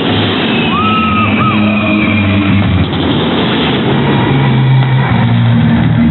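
Loud rock music played over a sound system, with guitar and a bass line moving through held notes, over a dense noisy wash.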